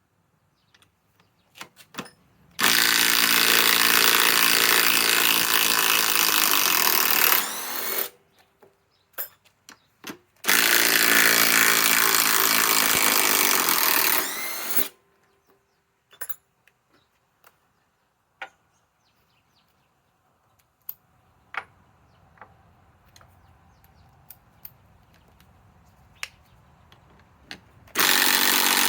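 Master Force brushless impact driver hammering as it backs out lag screws: two long runs of about five and four seconds, each easing off just before it stops, with a third run starting near the end. Sharp clicks and clinks from handling fall in the gaps between runs.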